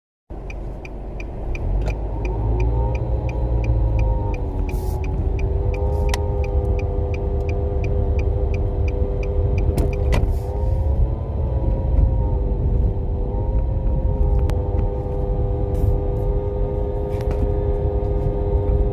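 2007 Nissan Sentra SE-R with a CVT automatic running, with a low rumble and a whine that rises about two to three seconds in and then holds steady. The whine is the transmission noise problem the owner reports. A regular ticking sounds over the first few seconds.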